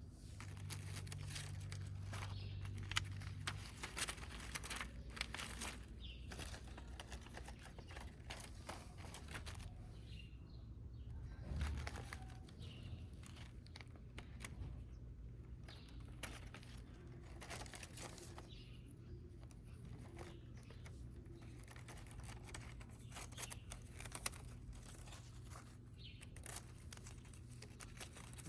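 Crinkling and rustling with many irregular clicks and taps, over a low steady hum.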